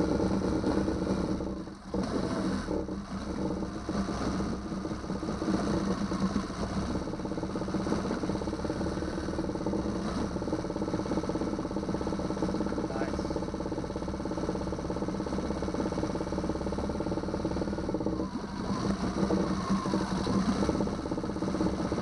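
2009 Yamaha 6 hp four-stroke outboard's single-cylinder engine running steadily after starting. The level dips briefly about two seconds in, then the engine runs evenly again.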